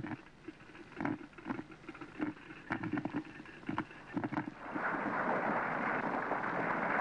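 Glass coffee percolator perking: irregular gurgling spurts as heated water and steam are forced up its glass throat. About five seconds in, a louder steady rushing noise takes over.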